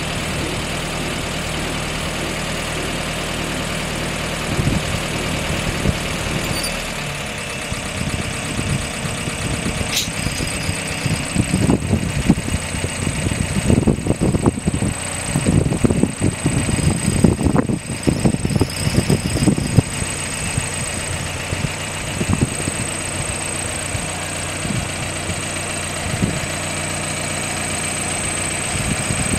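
Willys CJ6 Jeep engine idling steadily, with gusts of wind buffeting the microphone through the middle.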